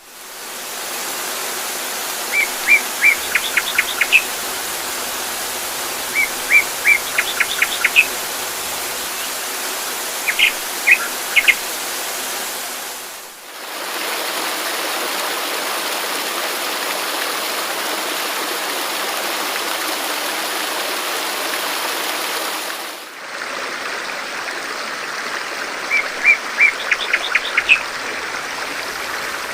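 Steady rushing water with a songbird singing the same short phrase four times: a few level chirps followed by a quick run of higher notes. The water sound dips briefly twice where recorded segments are joined, and no birds sing in the middle stretch.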